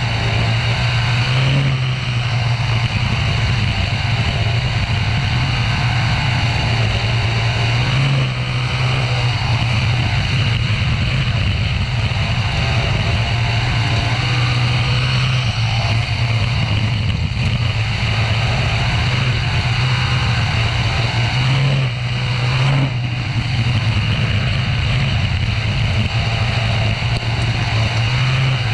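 Onboard sound of a winged dirt-track sprint car's engine running hard at racing speed, with a few brief dips in loudness.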